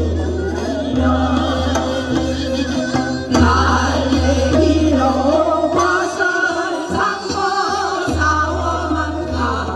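A group of women singing a Korean folk song (minyo) together into microphones, over an amplified accompaniment with a steady drum beat.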